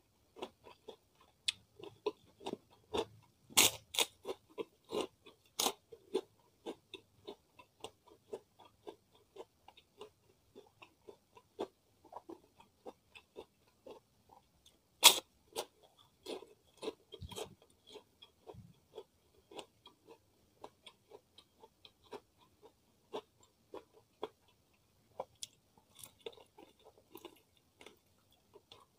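Close-miked biting and chewing of crispy kerupuk crackers: a run of sharp crunches, loudest a few seconds in and again about halfway, with quieter chewing between. Near the end, biting into a fried chicken drumstick.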